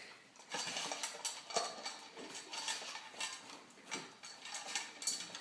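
A dog eating and licking food out of bowls, the bowls knocking and clinking in quick irregular clicks.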